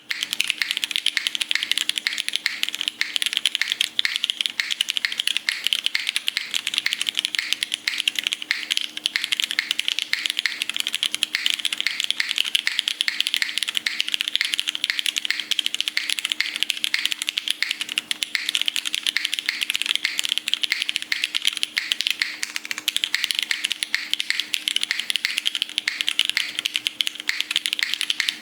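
Mechanical keyboard with Kohaku Silver switches being typed on quickly and without pause, a dense run of key clicks.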